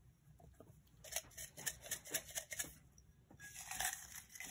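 Folded paper raffle slips rattling and rustling in a small glass jar as it is shaken, in irregular clusters of quick light clicks from about a second in, with a papery rustle near the end.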